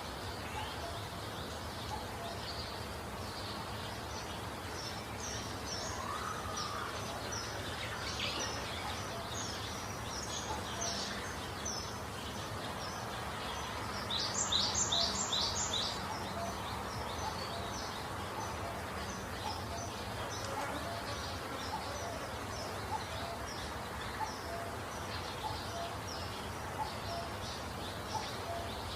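Small birds chirping, short high notes repeating over a steady outdoor hiss, with a louder run of four quick high notes about halfway through.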